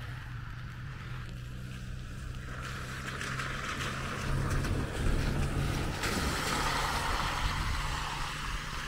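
A motor vehicle passing on a rain-soaked road, its tyres hissing through standing water. The hiss swells through the middle and is loudest near the end, over a steady low engine hum.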